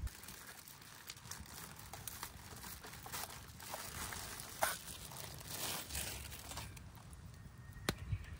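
Small wood campfire crackling, with scattered sharp pops and short spells of hissing while scallops grill over it. The sharpest pop comes about halfway through, another near the end.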